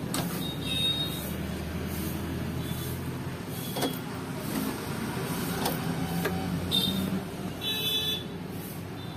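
Steady low rumble of road traffic in the background, with brief high toots and a few sharp clicks.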